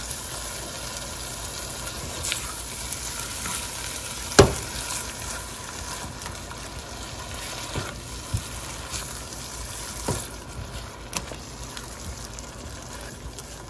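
Onion-and-spice masala with freshly added yogurt sizzling in a nonstick frying pan while a silicone spatula stirs and scrapes through it. A sharp knock about four seconds in and a few lighter taps break the steady sizzle.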